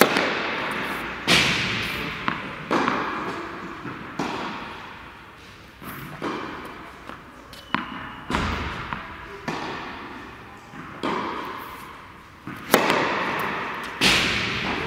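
Tennis practice serves: sharp strikes of racket on ball and ball bounces, a dozen or more at uneven intervals, each ringing out in the long echo of a large indoor tennis hall.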